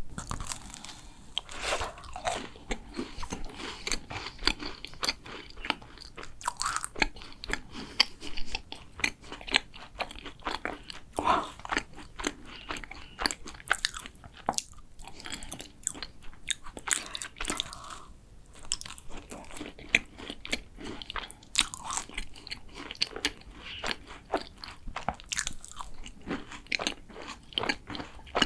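Close-miked biting and chewing of a chocolate macaron: many quick, sharp crackles and sticky mouth clicks following one another irregularly.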